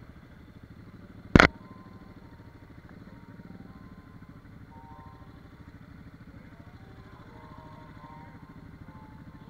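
ATV engine running steadily as the quad rides over a gravel trail, with one sharp, loud bang about a second and a half in. A faint higher-pitched drone joins about halfway through.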